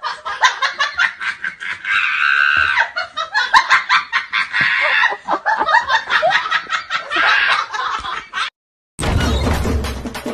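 Several men laughing together in rapid bursts for about eight and a half seconds. The laughter cuts off, and after a brief gap music with a percussive beat starts near the end.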